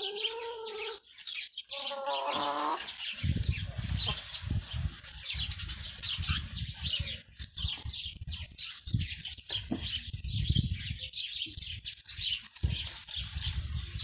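A hen calls twice in the first three seconds, drawn-out clucks that bend in pitch, over a steady background of high bird chirping. From about three seconds in, a low buffeting rumble with irregular thumps sets in and stays the loudest sound.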